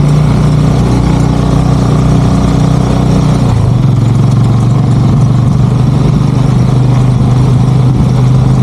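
Sidecar motorcycle engine running steadily under way, with a constant rush of noise over it. Its note steps down slightly about three and a half seconds in.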